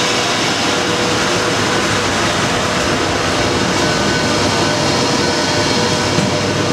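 Steady hum and whir of an EP20 electric locomotive's running onboard equipment, heard inside its machine-room corridor, with a constant tone in the hum.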